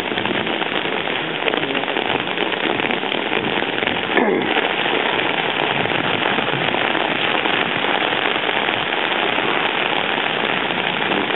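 Heavy rain drumming on an umbrella held over the microphone: a loud, steady, dense crackle of drops.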